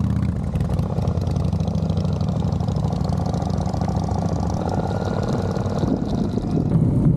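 Royal Enfield 650 parallel-twin motorcycle engine running steadily at low revs.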